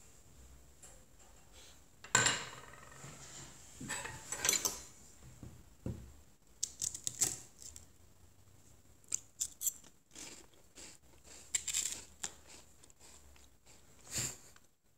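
A butter knife and then a steel fork scraping and tapping on a paper plate as they cut and stab Ritz crackers into pieces. The sounds come as irregular short scrapes and clicks a second or two apart.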